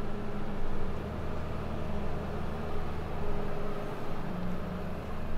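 Busy outdoor street-market ambience: a steady low hum under a dense mix of background noise and distant chatter, with no single sound standing out.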